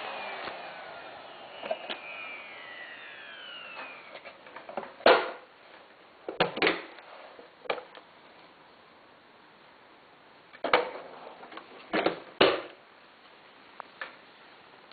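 Miele S744 vacuum cleaner's 1800 W motor winding down after being switched off, its whine falling in pitch and fading over the first few seconds. Then a string of sharp clicks and knocks, a few at a time, from the machine being handled.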